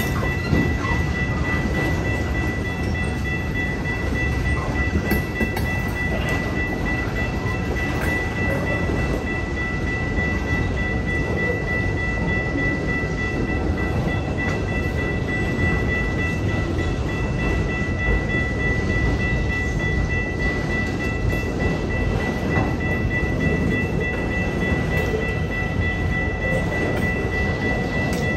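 Freight train cars rolling steadily past a grade crossing: low rumble with wheel clatter and occasional clanks. A steady high ringing tone, the crossing's warning bell, sounds over the train noise.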